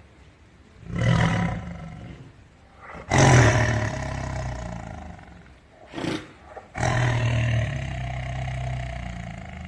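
Tiger roaring repeatedly: a deep roar about a second in, a louder one around three seconds in, a short call near six seconds, then another long roar that slowly fades out.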